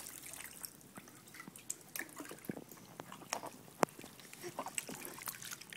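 Bathwater dripping and splashing lightly in a plastic infant bathtub, in irregular small drips, the sharpest a little under four seconds in.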